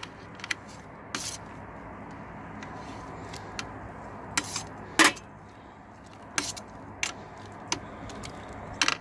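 Metal spoon stirring the top of a mash in a stainless steel brewing kettle, clinking and scraping against the pot in irregular knocks, the loudest about five seconds in.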